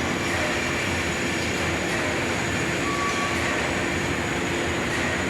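Steady machinery noise: an even, continuous mechanical rush with faint steady hum tones, which does not change over the few seconds.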